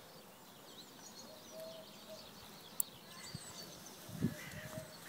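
Faint outdoor birdsong: thin high chirps and a few short whistled notes. A single sharp click comes about halfway through, and a few soft low knocks follow near the end.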